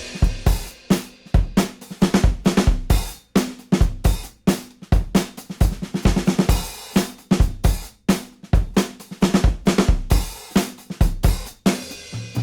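Background rock music in a drums-only passage: a drum kit playing a busy beat with kick, snare, hi-hat and cymbals.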